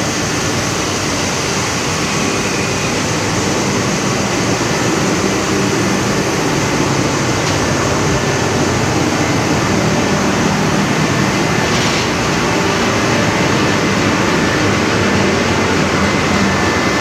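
Ship's centrifugal fuel oil purifiers running in the purifier room: a loud, steady machinery din with a low, even hum.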